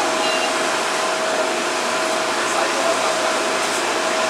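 Steady rush of air-conditioning and ventilation in a stationary MTR CAF metro train standing at the platform with its doors open, with a thin, steady whine running through it.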